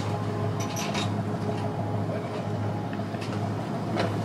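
A steady low mechanical drone with a few sharp clanks and knocks scattered through it, the loudest near the start and near the end.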